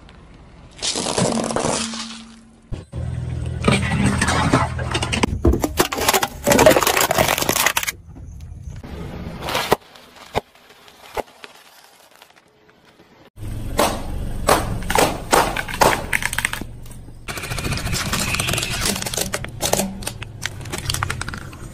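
Car tyres rolling slowly over objects and crushing them one after another: plastic and packaging crack, snap and crunch under the wheel's weight, over the hiss of the tyres and the car running. There is a quieter stretch near the middle.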